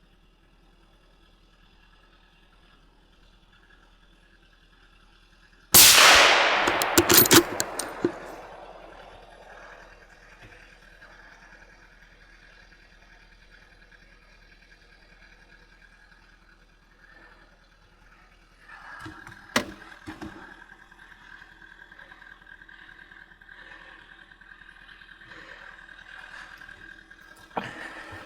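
A single rifle shot about six seconds in, its report echoing and fading away over about two seconds. A sharp click comes later and another brief sharp sound near the end.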